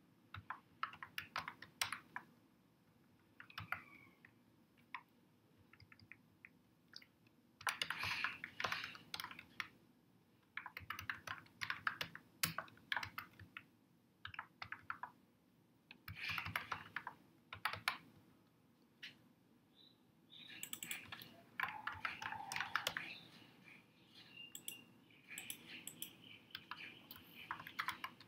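Typing on a computer keyboard: bursts of quick key clicks separated by short pauses, with the densest runs about eight seconds in and again from about twenty seconds in.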